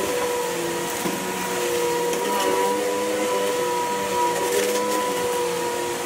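Tornado CK14/1 upright vacuum cleaner running over carpet: a steady motor whine over the rush of air.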